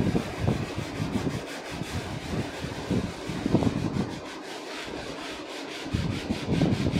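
Scrubber rubbing lightly back and forth on the stained underside of a pan in quick repeated strokes, with some irregular knocking, as the sprayed-on cleaner and loosened stain are scrubbed off.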